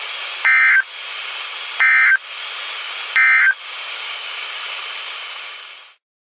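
Three short bursts of warbling EAS/SAME data tones, the end-of-message code, about 1.4 seconds apart over the steady hiss of a weather-radio broadcast. The hiss cuts off suddenly near the end.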